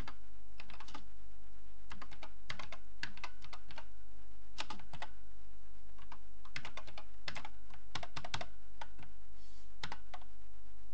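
Acorn Electron keyboard being typed on: irregular runs of key clicks with short pauses between them, over a steady low electrical hum.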